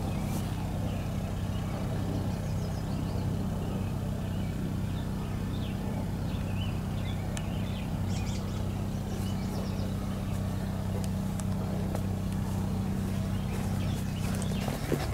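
A steady low engine hum, with birds chirping faintly over it; the hum cuts off near the end.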